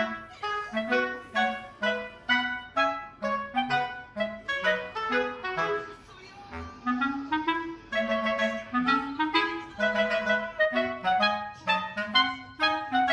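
Background music: a bouncy tune of short, detached notes on a woodwind that sounds like a clarinet, with a brief quieter gap about six seconds in.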